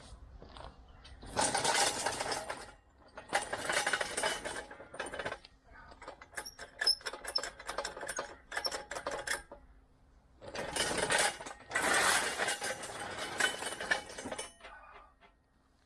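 Metallic clinking and rattling from an engine hoist's lifting gear and the lathe as the hoist takes the lathe's weight. The sound comes in several bursts, with a run of quick clicks in the middle.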